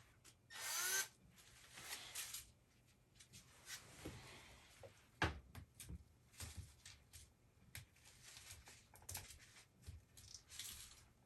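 Faint scattered clicks, taps and rubbing of hand tools and wires being worked on a fuse block, with a brief louder scrape about a second in.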